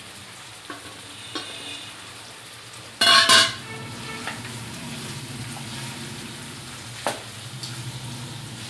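Chicken pieces sizzling in hot oil in a non-stick kadai while a slotted spatula stirs and turns them. A short, loud noise comes about three seconds in, and a sharp tap just after seven seconds.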